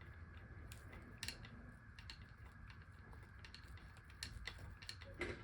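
Faint, scattered metallic clicks and creaks from a bicycle chain breaker tool being worked to press a pin out of an old BMX chain.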